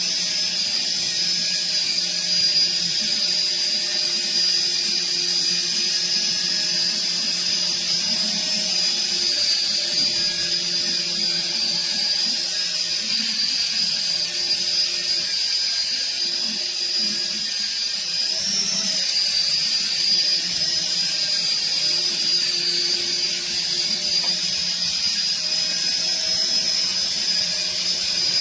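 Small electric motors of a toy RC helicopter running steadily, giving a high-pitched whine that wavers slightly in pitch and rises briefly about two-thirds of the way through.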